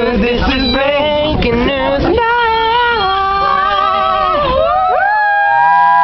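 A group of young people singing loudly together in a packed metro carriage. The singing is choppy at first, then turns to long held notes from about two seconds in, with a new held phrase starting near the end.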